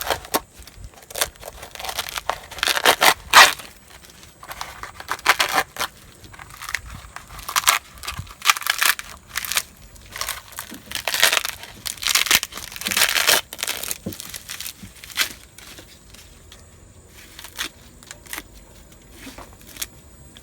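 Dry, brittle skin being cracked and peeled by hand off a sun-dried loofah gourd, in irregular bursts of crackling and tearing. The bursts come thick for most of the stretch and thin out near the end.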